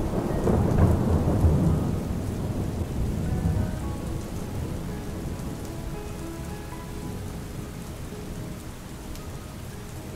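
Steady rain falling, with a low roll of thunder over the first couple of seconds that fades away.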